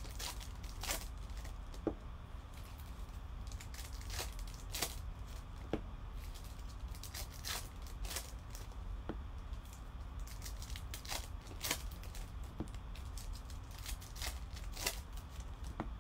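Wrapper of a Topps baseball card pack torn open and crinkled in the hands, with cards slid and flicked out of it: irregular crisp crackles and clicks over a low steady hum.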